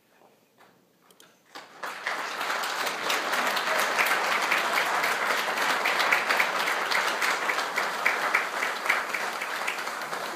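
Theatre audience applauding, starting about two seconds in and holding steady as a dense patter of many hands clapping.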